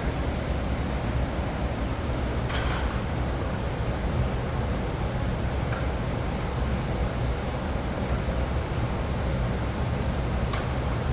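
Steady ventilation fan noise with a low hum, broken by two brief clicks, one about two and a half seconds in and one near the end.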